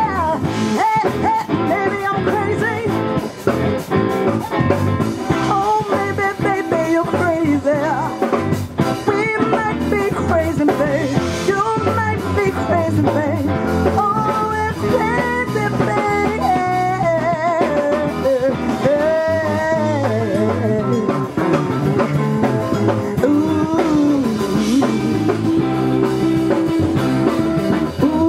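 Live band playing: a woman singing through a microphone over electric bass, electric guitar and drum kit.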